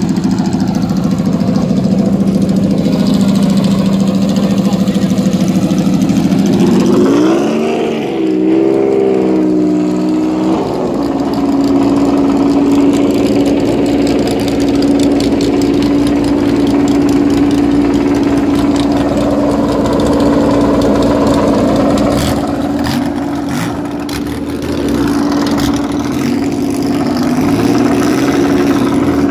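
Classic rally car engines running in a pre-grid paddock: a steady idle, then revving up and down a few times from about seven seconds in, after which a steady, higher engine note holds.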